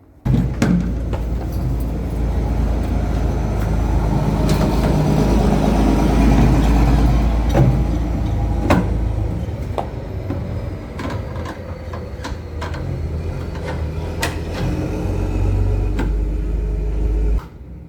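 Vehicle noise: a steady low rumble with scattered sharp clicks and knocks, cutting in and out abruptly.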